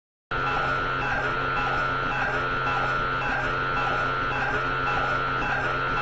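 Loud, steady electronic drone with a constant low hum and a pulse that repeats about once a second, starting abruptly a moment in.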